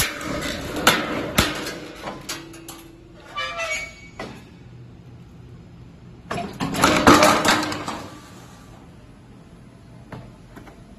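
C/Z purlin roll-forming machine at work, a formed steel purlin running through its cutting station. Several sharp metal knocks in the first few seconds, then a louder rushing scrape of steel lasting about a second and a half a little past the middle.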